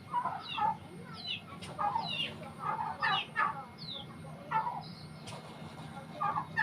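Chickens clucking in a string of short calls that fall in pitch, about two a second, with a steady low hum underneath.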